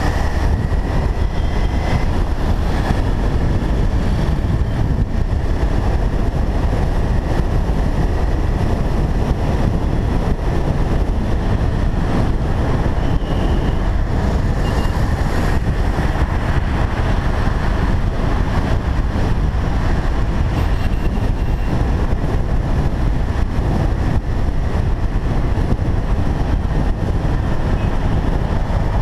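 Steady rush of wind on the microphone of a camera mounted on a moving motorcycle, mixed with the bike's running and passing road traffic.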